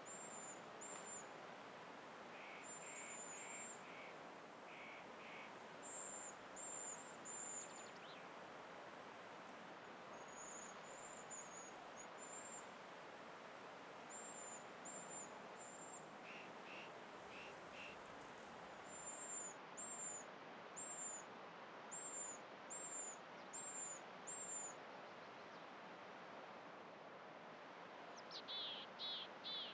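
Faint, high-pitched bird calls in a forest: thin downslurred chirps repeated about every half second, with a few quick series of lower notes, over a soft hiss of the outdoors.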